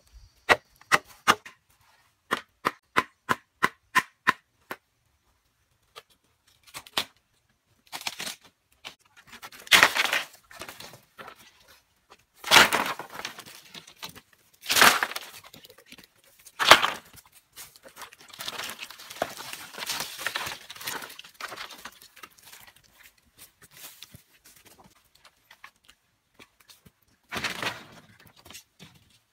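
Machete strikes on green bamboo, a quick series of sharp chops about three a second, followed by several loud cracking, tearing splits as bamboo poles are split lengthwise, then scattered lighter knocks of bamboo being handled.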